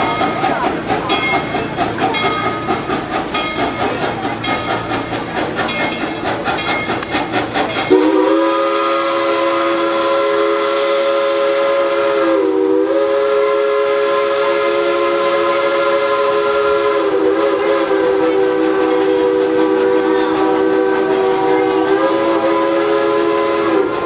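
Steam locomotive working hard with a fast rhythmic chuffing, then about eight seconds in its chime whistle starts one long blast of several notes together that is held for about sixteen seconds, its pitch sagging briefly a few times.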